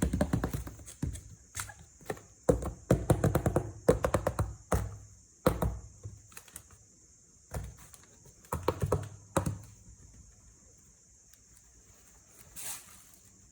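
A mystery box and its packaging being handled and opened by hand: irregular runs of clicks, taps and light knocks in bursts with pauses between them, busiest in the first few seconds and again about nine seconds in.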